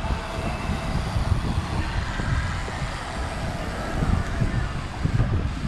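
Steady, fluctuating road and traffic rumble on a freeway, with wind buffeting the microphone and faint steady tones above it.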